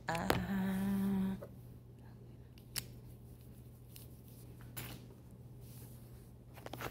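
A woman humming one held note for about a second, then a couple of short clicks.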